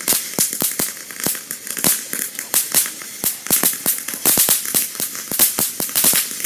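Consumer firework crackling: a fast, irregular string of sharp pops and crackles.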